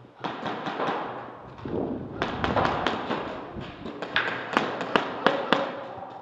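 Airsoft guns firing: a run of sharp, irregular pops and cracks, thickest in the middle and latter part, over rustling movement.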